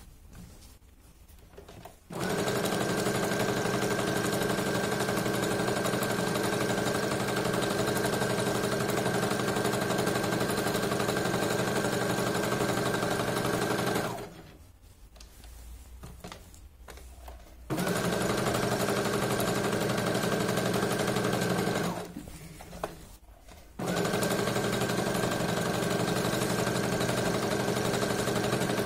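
Brother FS101 sewing machine running at a steady speed, sewing a straight-stitch seam through the fabric of a pillow cover. It starts about two seconds in, stops for a few seconds twice (after about twelve seconds and again a few seconds later), and starts again each time.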